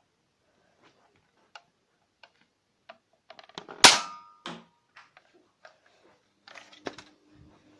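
Toy gun firing once with a single sharp crack about four seconds in, followed by a brief ringing tone. Small clicks and knocks from handling the gun come before and after it.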